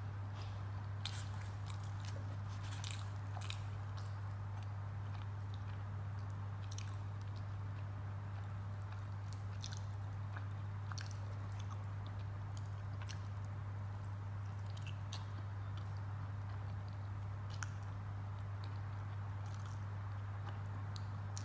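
Close-up mouth sounds of a person chewing and biting dal poori with potato curry, with irregular small wet clicks and smacks. A strong steady low hum runs underneath.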